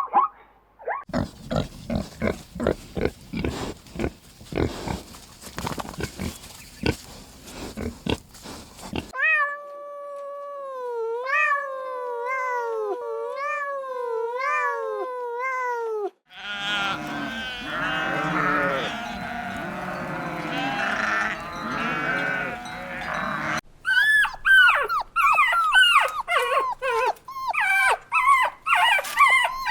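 Farm animals calling, in several separate clips one after another. First comes a fast run of short grunts. Then a single pitched call repeats about once a second, each one falling at the end. Next is a dense chorus of many overlapping calls, and finally a string of short, high, falling cries.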